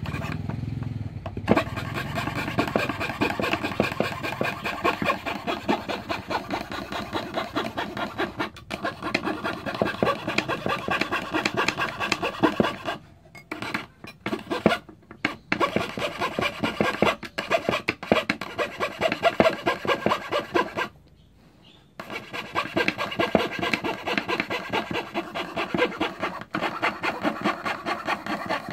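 Hand fretsaw sawing with quick, even back-and-forth strokes. It stops briefly a few times, with the longest pause about two-thirds of the way through.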